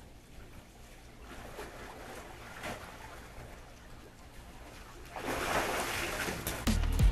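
Swimming-pool water sloshing and splashing as two people wade and jostle for a ball, with louder splashing about five seconds in as they jump for a shot. Music with a beat starts near the end.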